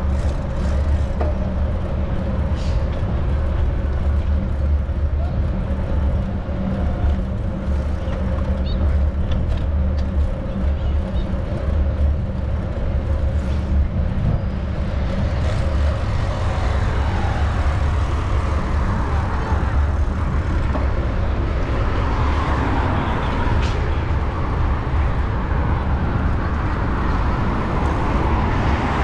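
Wind rumbling on the microphone of a moving bicycle, with road traffic from the avenue alongside, the traffic noise growing louder in the second half.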